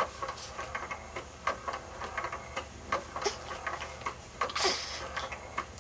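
A sleeping baby's mouth noises: irregular clicks and smacks, about three or four a second, with a louder breathy grunt about four and a half seconds in.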